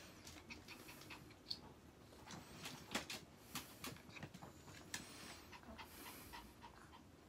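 A long-haired Chihuahua panting close by, faint, with scattered light clicks and taps that are strongest around the middle.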